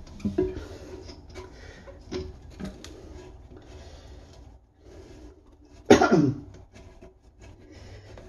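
Hands turning the coupling nut of a braided toilet supply hose at the tank, with light rubbing and a few small knocks. About six seconds in comes a short, loud grunt that falls in pitch.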